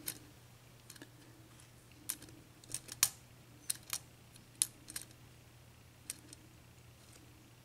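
Lock pick working the serrated pins of a Dorma 7-pin mortice cylinder under tension: light, irregular metallic clicks as the pins are raised and set, about ten over several seconds, the loudest about three seconds in.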